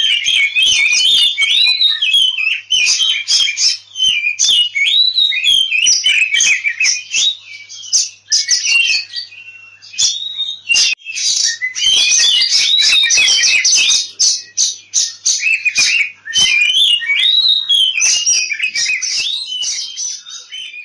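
Oriental magpie-robin (kacer) singing in agitated fighting mode ('ngobra'): a fast, nearly unbroken run of rising and falling whistled notes laced with harsh rasping and clicking notes, with brief lulls about 8, 11 and 16 seconds in. This is the aggressive song used as a lure to provoke other male magpie-robins into singing.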